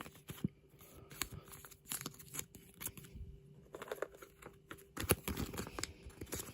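Pokémon trading cards and their plastic being handled and shuffled about: light rustling and crinkling with scattered small clicks and taps, a few sharper ones standing out.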